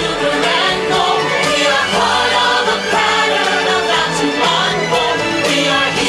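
Stage-show music with a choir singing over a full instrumental backing track, loud and continuous.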